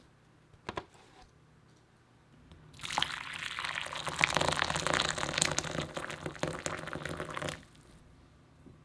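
Hot water poured in a steady stream into a glass bowl, splashing and filling it. The pour starts about three seconds in and stops sharply about five seconds later.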